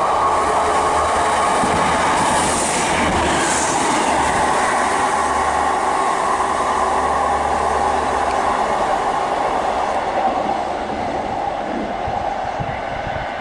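A two-car Class 150 Sprinter diesel multiple unit passing through the station. Its diesel engines and wheels on the rails run loud and steady, then fade over the last few seconds as it draws away.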